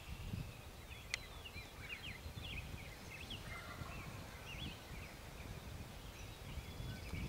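Small songbirds singing: a busy string of short chirps and quick sliding whistled notes, over a low rumble on the microphone. One sharp click about a second in.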